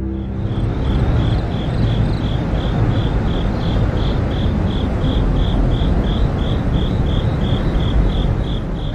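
An insect chirping in an even rhythm, about two and a half high chirps a second, over a steady low rumbling background noise.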